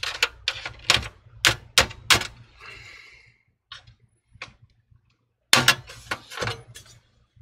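Sharp metallic clicks and taps of a flathead screwdriver and a sheet-steel bracket against an HP Envy TE01 desktop's steel case as the bracket is pried loose. A quick run of clicks comes first, then a pause of about two seconds, then another cluster near the end.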